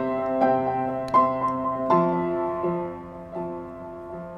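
Background music: a gentle piano melody, notes struck about every half second.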